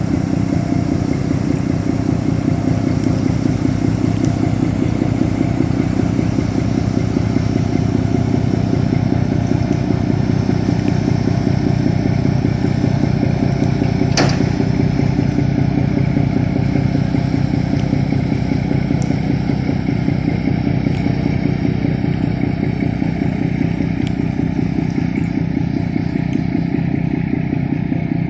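Boat engine running steadily at an even pace, with a fast, regular low pulsing.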